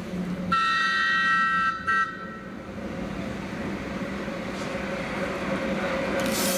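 A heritage train's whistle gives one long blast of about a second, then a short toot, before the train's rumble on the rails grows steadily louder as it approaches, with a brief hiss near the end.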